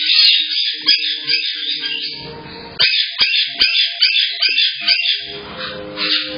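Caiques calling: shrill, rapid chirps and squawks, with a quick run of repeated notes in the middle and a few sharp clicks.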